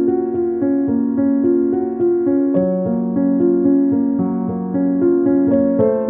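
Soft instrumental background music: sustained keyboard chords under a slow melody.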